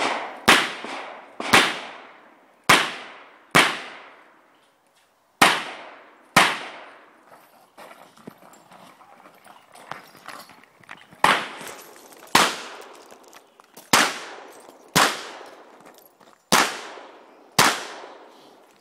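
Smith & Wesson 625 revolver firing about a dozen shots, each with a trailing echo, roughly one a second in two strings with a pause of about five seconds between them.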